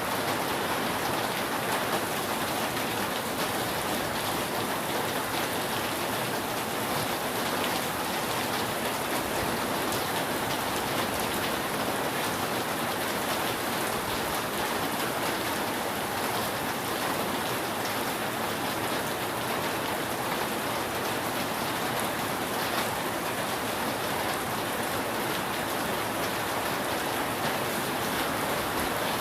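Steady rain falling on a roof: an even, dense hiss of many drops.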